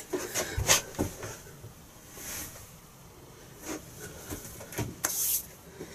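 Scattered light knocks and clicks, with two short rustling swishes about two and five seconds in: the small handling noises of a person shifting and leaning on a wooden workbench.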